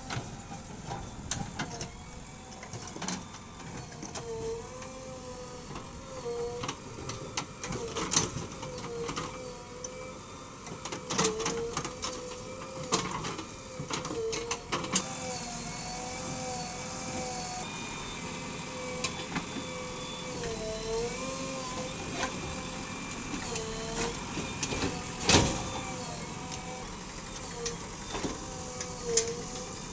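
JCB 3DX Xpert backhoe loader working: its diesel engine runs with a note that dips and recovers over and over under load, with scattered clanks and knocks from the bucket and arm and one loud knock near the end.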